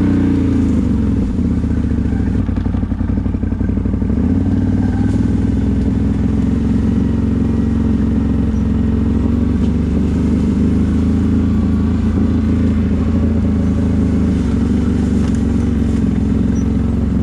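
CFMoto CForce 1000 ATV's V-twin engine running at low, fairly steady revs while riding, its pitch rising and falling slightly.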